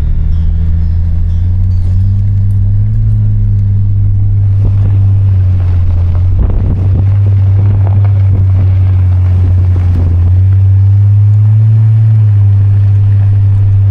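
Car engine and road noise heard from inside the cabin while driving: a loud, steady low hum that drifts slightly up and down in pitch.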